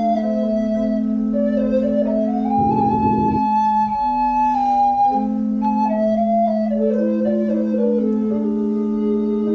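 A small recorder ensemble playing a slow piece in several parts, a low note held under most of it while the upper parts move by step.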